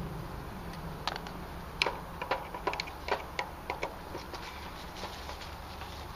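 Irregular small metallic clicks and ticks of a hand screwdriver working the screws on an air-conditioner contactor, coming thickest in the middle of the stretch, over a low steady rumble.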